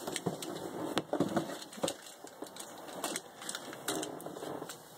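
A cardboard mailing box being handled and turned over: scattered light knocks, scuffs and rustles of cardboard, with a couple of sharper taps about one and two seconds in.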